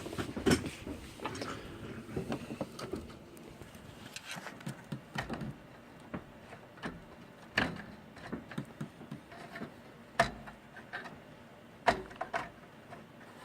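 Computer parts being handled during disassembly: irregular clicks, taps and knocks of plastic and metal, with a few louder knocks spread through.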